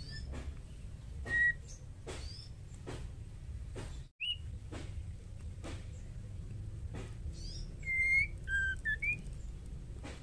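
Female white-rumped shama giving short, scattered whistled calls, with a louder run of several quick whistles about eight seconds in. Faint regular clicks and a low steady hum sit underneath, and the sound drops out for a moment a little after four seconds.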